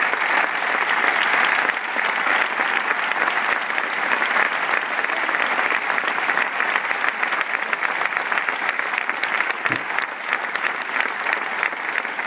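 Crowd of spectators applauding: many hands clapping in a dense, steady stream, slightly louder in the first couple of seconds.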